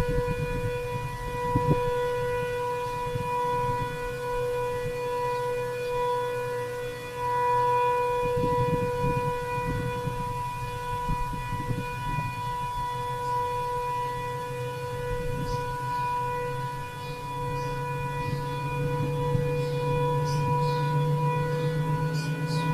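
Sentry 7V8-B outdoor warning siren sounding its steady alert tone, one held pitch heard from a distance, swelling and fading a little in loudness.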